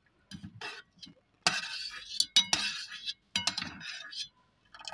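A small metal strainer-ladle clinking and scraping against the inside of a metal camping cook pot as it scoops through hot water, with splashing. A few light clinks come first, then a longer run of clatter and sloshing from about a second and a half in.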